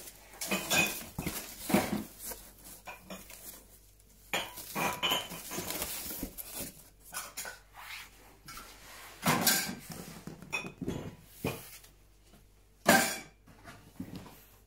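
Irregular knocks, rattles and clatter of objects being moved and handled, with the sharpest knock about 13 seconds in.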